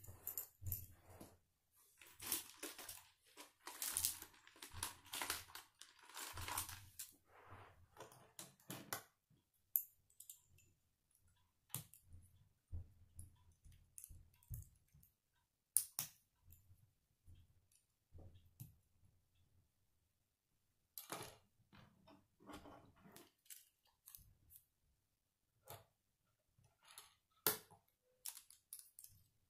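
K'nex plastic rods and connectors being handled and snapped together: a stretch of rattling for the first several seconds, then scattered sharp clicks and short bursts of clicking.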